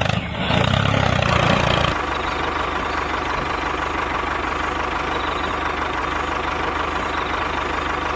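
Tractor engine sound running steadily with the toy tractor. It is deep and rough for about two seconds, then changes abruptly to a smoother, steadier drone.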